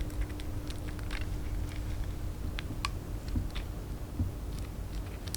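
Scattered small clicks and ticks of buckles and straps being fastened on a pair of platform high-heel shoes, over a faint steady hum.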